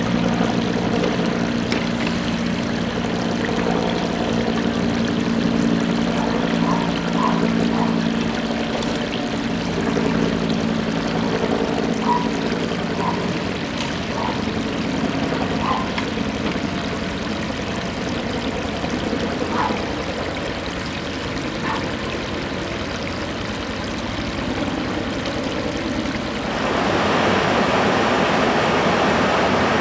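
Rushing water running steadily, with an engine running underneath for about the first half. Near the end the rush becomes louder and fuller.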